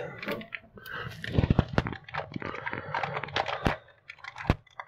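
Clear plastic bag of small plumbing fittings crinkling in the hands, with irregular crackles and clicks as the parts inside are handled.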